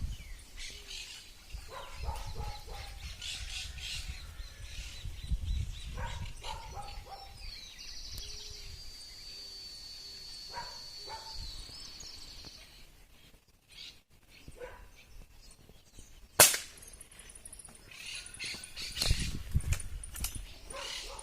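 Birds calling, with one held high trill partway through. About sixteen seconds in comes a single sharp crack, the loudest sound here: a rifle shot.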